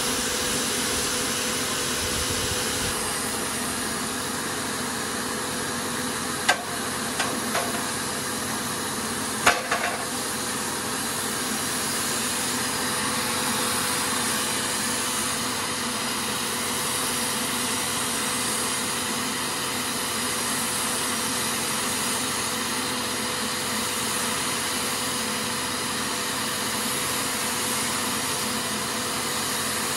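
Bosch electric paint sprayer running steadily: its turbine blowing air down the hose with a steady hiss and hum as the spray gun atomises paint. A few sharp clicks come about a third of the way in.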